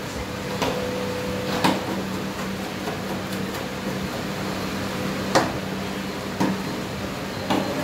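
Steel spatulas scraping and spreading chocolate ice cream across the frozen metal plate of a rolled-ice-cream pan, with a few sharp metal clinks, the loudest about five seconds in, over a steady low hum.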